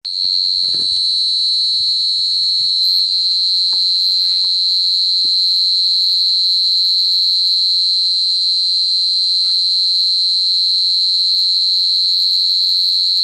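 Chorus of night insects shrilling: one continuous, high-pitched, unbroken tone that holds steady in pitch and level.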